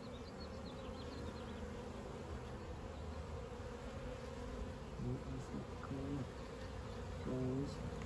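Steady hum of a honey bee colony, many bees buzzing around an opened hive during a frame inspection.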